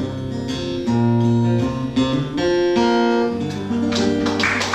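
Acoustic guitar playing the closing chords of a song, plucked notes ringing out. Applause breaks out near the end.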